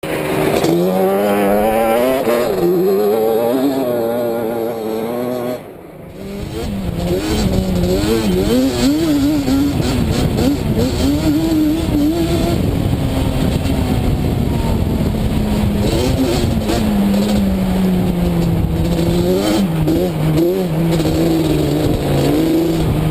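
Tuned Yamaha Banshee quad's twin-cylinder two-stroke engine revving and running, its pitch rising and falling with the throttle. About six seconds in the sound drops off sharply for a moment, then picks back up and holds a steadier pitch.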